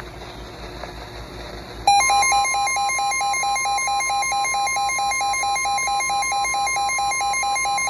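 Low radio static, then about two seconds in a NOAA Weather Radio 1050 Hz alert tone starts, a loud steady tone that marks a new warning. Over it a weather radio receiver's electronic alarm beeps rapidly, about four to five beeps a second.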